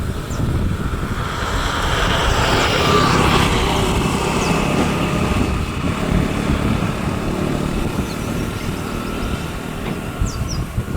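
Outdoor background rumble and hiss, with a swell between about two and five seconds in like traffic going by. A few short, faint high bird chirps.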